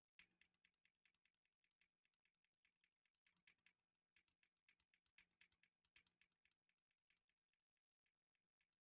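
Faint, rapid, irregular clicking of keys on a Win60 HE Hall-effect keyboard being pressed over and over, starting just after the opening and thinning out near the end.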